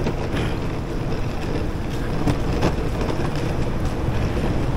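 Steady low rumble of city street traffic, with wind buffeting the microphone.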